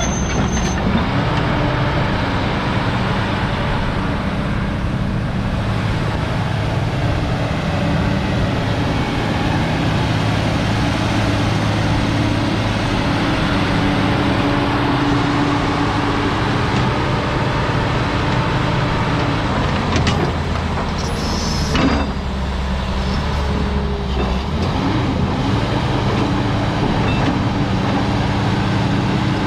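Diesel engine of a Hyundai R390LC-9 hydraulic excavator running steadily. About twenty seconds in there are a couple of short sharp sounds and a shift in the engine note, then it runs on steadily.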